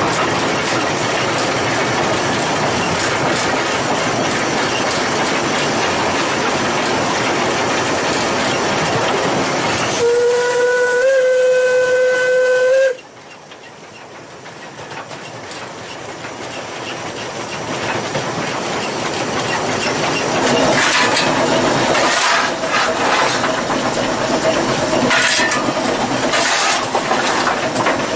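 Steam locomotive running, heard from inside the cab: a steady rush of exhaust, steam hiss and wheel noise. About ten seconds in the steam whistle sounds once, a single held note lasting about three seconds, rising slightly and cutting off sharply; the running noise then returns, quieter at first and building, with irregular metallic clanks near the end.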